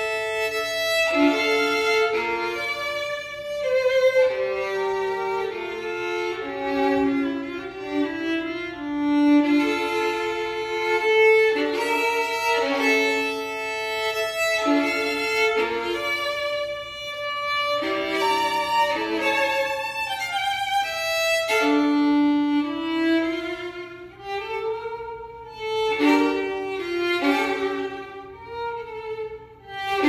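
Solo violin bowed, playing a continuous melody of changing notes.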